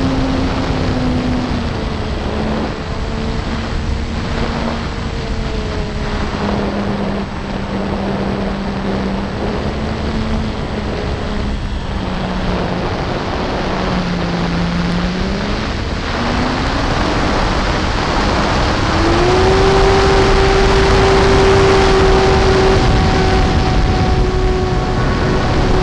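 Electric motor and propeller of a ParkZone Corsair RC model plane in flight, heard from a camera on the airframe, over a steady rush of wind on the microphone. The motor's pitch drifts with throttle, dipping just past halfway, then rising to a higher steady whine from about three-quarters in.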